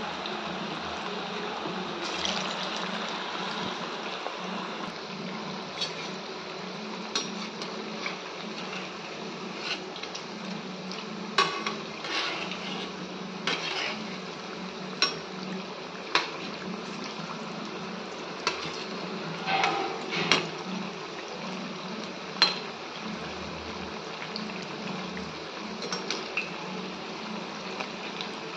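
Fritters deep-frying in a steel kadai of hot oil, a steady sizzle, with repeated sharp clinks of a perforated metal skimmer against the pan as they are turned, most of them through the middle.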